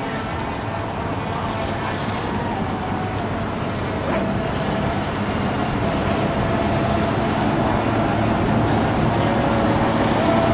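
Radio-controlled speedboats running flat out on open water, a steady high motor note with lower tones beneath, growing louder as a boat comes closer near the end.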